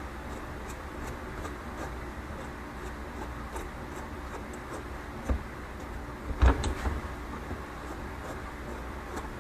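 Spring compressor and coil-over shock being handled and fitted together: a light knock about five seconds in, then a louder clunk a second later followed by a few smaller knocks and clicks, over a steady low hum.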